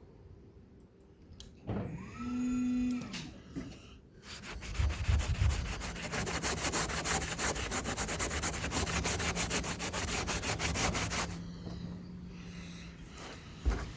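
Power sander working a hard surface: a short whir as the tool spins about two seconds in, then from about four seconds a steady rough sanding noise over a motor hum, which drops back about eleven seconds in.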